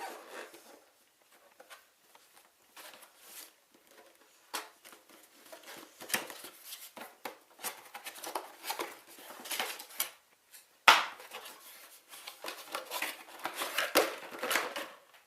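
Cardboard box and packaging being handled and opened: irregular rustling, scraping and tapping, with a sharp knock about eleven seconds in.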